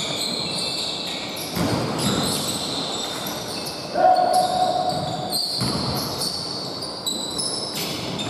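Basketball game sounds in a reverberant gym: the ball bouncing on the wooden court, players' feet on the floor, and players calling out. About four seconds in comes a loud held tone lasting about a second and a half.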